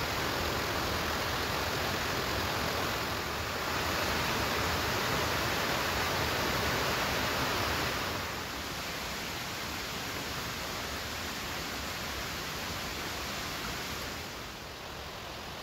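Mountain stream rushing steadily out of sight. It grows louder a few seconds in, then fades in two steps.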